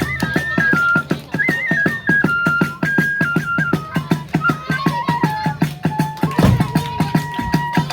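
Kagura hayashi accompaniment: a bamboo flute plays a stepping melody over fast, steady drum strokes. A louder drum stroke falls about six and a half seconds in, and the flute then holds one long note.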